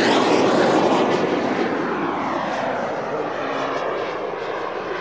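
Gas turbine of a Comp-Arf Hawk model jet whining in a close pass, loudest at first and then fading as it draws away, its pitch sliding down.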